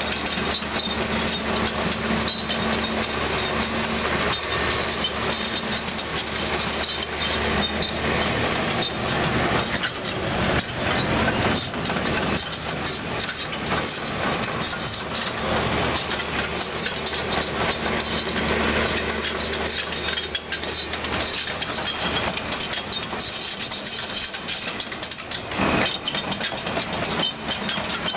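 Caterpillar 320D2 hydraulic excavator working: its diesel engine runs with a steady low hum under the hydraulic load while the bucket digs and scrapes crushed stone, with stones clattering and the bucket knocking. A sharp knock stands out near the end.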